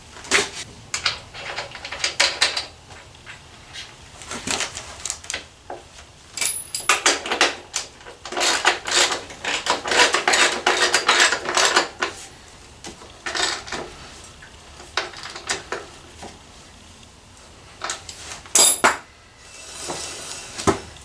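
Metal hand tools clinking and clicking on the motorcycle's rear axle hardware as the axle nut is tightened, in bursts of rapid clicks with short pauses.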